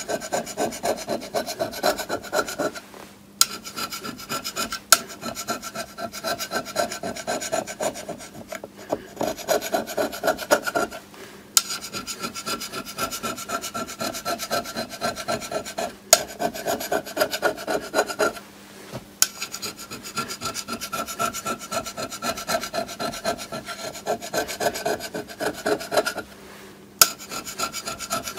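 Hand scraper working an aluminium plate in rapid short strokes, a dry rasping scrape with a ringing note from the plate, broken by brief pauses every few seconds and a few sharp clicks. This is hand scraping to bring the soft aluminium surface flat.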